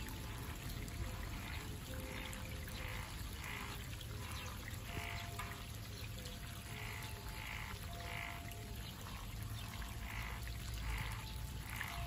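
Frogs calling in a steady series of short notes, about two a second, with a brief pause about nine seconds in, over the low rush of a flowing stream.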